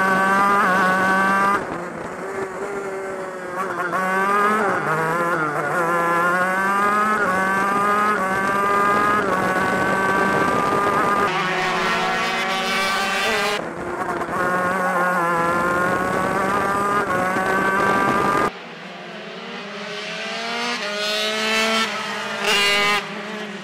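Shifter kart two-stroke engines racing at high revs. Their notes climb in pitch again and again and drop back as the gears are shifted. From about two-thirds of the way in the sound is more distant and thinner, rising and falling as karts go past.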